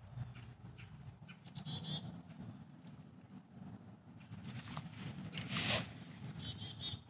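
Outdoor birds giving two short, high chirping trills, one about one and a half seconds in and one near the end, over a faint low rumble. A brief rustle comes about five and a half seconds in.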